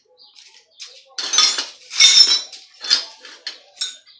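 Metal clanking and clinking as a bicycle fork and a hand tool are handled, about five sharp clanks, the first about a second in.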